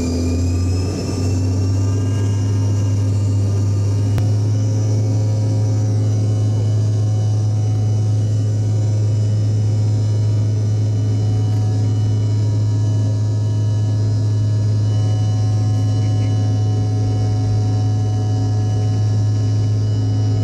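Jet airliner's engines heard from inside the passenger cabin: a whine that rises in pitch over the first two seconds or so, then holds steady over a strong, steady low hum.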